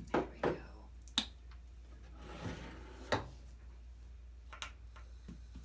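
Handling sounds at a gas stove: two knocks at the start, a sharp click about a second in, a soft rustle, another knock just after three seconds, and a click near the end as the burner knob is turned on.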